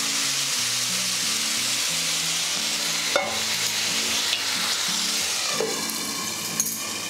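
Spinach-and-mung dal sizzling as it goes into hot mustard-oil tempering with fried onion and garlic. The hiss is strong at first and dies down in the last couple of seconds, with a couple of light clicks along the way.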